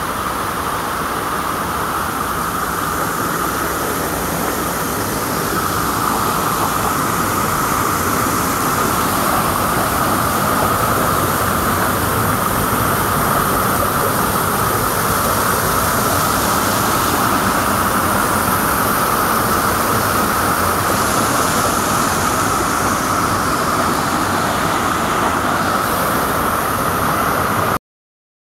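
Steady rush of a swollen, muddy creek pouring over rock ledges in small rapids and cascades. It cuts off suddenly near the end.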